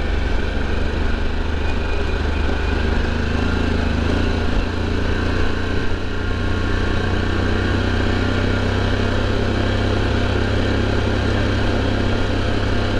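Harley-Davidson Pan America's 1250 V-twin running steadily under way, with a constant wash of wind and tyre noise over the low engine drone.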